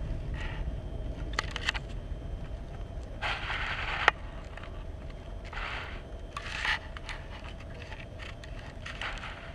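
A low steady rumble with several short scraping noises over it, and a sharp click about four seconds in.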